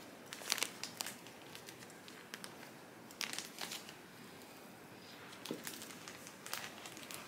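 Clear plastic zip-top bag crinkling and moss rustling as the moss is pressed into the bag by hand, in short faint bursts.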